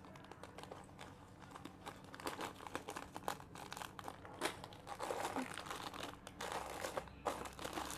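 Thin plastic pouches crinkling and rustling as hands shuffle through them, in an irregular run of crackles that gets busier about halfway through.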